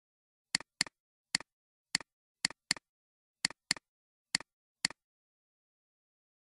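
Computer mouse clicks: about ten sharp clicks, several in quick pairs as double-clicks, over otherwise dead silence.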